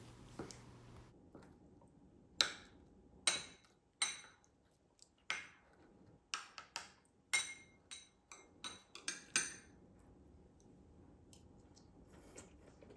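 About a dozen sharp, irregular clicks, each with a short glassy ring, over a faint steady hum.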